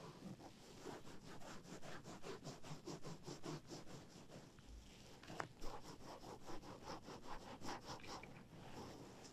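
Close-miked ear-massage ASMR: hands rubbing and kneading over the microphone in quick, even strokes, several a second, with one sharper tap a little past halfway.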